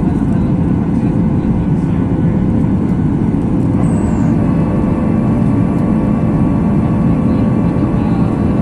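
Steady cabin roar of a Boeing 737 MAX 8 in flight: its CFM LEAP-1B jet engines and the airflow over the fuselage, deep and even, with a few faint humming tones that come in about halfway.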